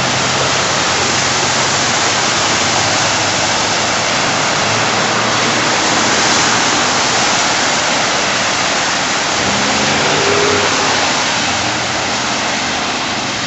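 Cars and pickups driving through a flooded street, their tyres throwing up spray in a steady rushing hiss, with engines running underneath.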